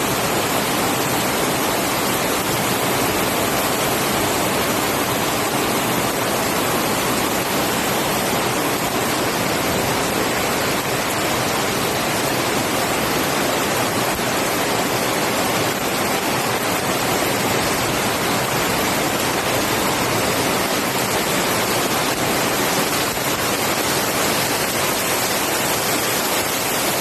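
Fast-flowing floodwater rushing, a loud, steady noise that does not change.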